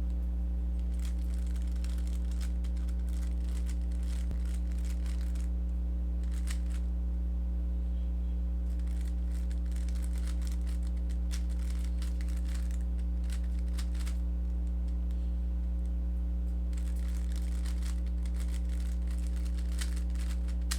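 Plastic Rubik's cube being turned, bursts of rapid clicking layer turns as OLL algorithms are run, separated by short pauses. A steady electrical hum underlies it and is the loudest sound.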